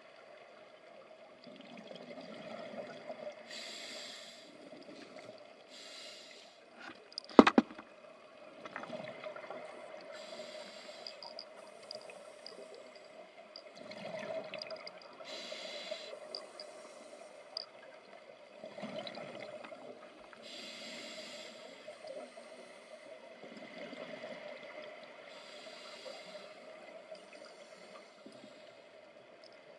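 Scuba regulator breathing heard underwater: a hissing inhalation and then a bubbly burst of exhaled air, repeating every five or six seconds. One sharp, loud knock comes about seven and a half seconds in.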